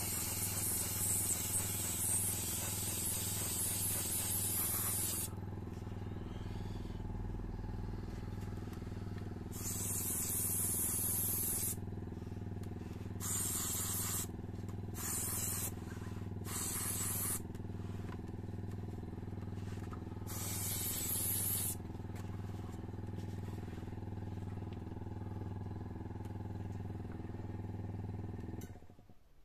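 Airbrush spraying varnish in hissing bursts: one long pass at the start, then about five shorter ones a few seconds apart. Under it, the steady hum of the airbrush compressor, which shuts off just before the end.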